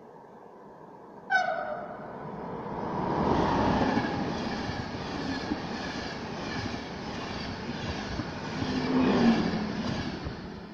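A RegioJet locomotive-hauled passenger train sounds a short horn blast about a second in, then passes at speed: the rush and rumble of the locomotive and its coaches on the rails, swelling, holding, and fading away near the end.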